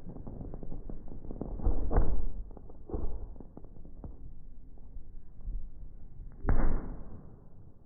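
Fireworks shells bursting, slowed down and lowered in pitch: three deep, drawn-out booms, about two seconds in, a second later, and a louder one near the end, over faint crackling.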